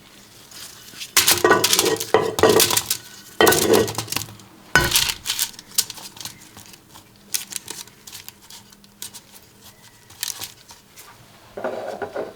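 Kitchen utensils and cookware clinking and clattering in three dense bursts of knocks over the first five seconds. Lighter scattered clicks follow, with another short clatter near the end.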